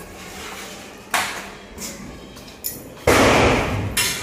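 Firecrackers going off: a sharp bang about a second in that rings away, a smaller crack, then a loud burst lasting about a second that ends in another crack.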